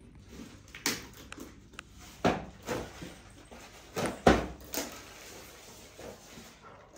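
A string of sharp knocks and rustling scrapes from unpacking and handling the parts of a boxed shoe rack, loudest a little over two seconds in and again around four seconds in.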